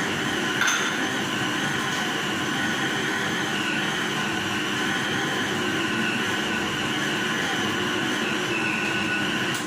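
Electric mixer running steadily as it kneads chapati dough of flour, ghee and water, with a constant motor whine. It is switched off abruptly at the very end.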